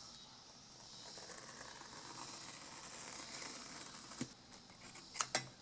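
Foam being cut: a faint, soft hissing scrape for about three seconds, then a few light clicks near the end.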